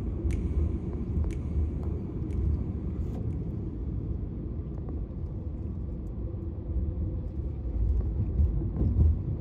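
Steady low road rumble of a car driving through city streets, heard from inside the car's cabin. A light tick comes about once a second during the first few seconds.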